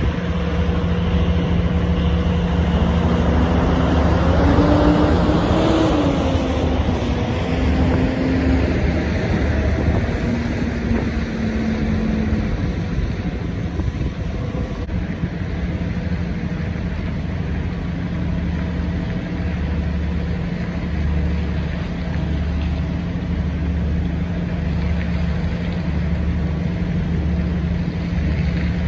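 Diesel truck engines idling in a steady low rumble. About two seconds in, another vehicle's engine grows louder, its note rising and then falling as it passes, and fades by around twelve seconds.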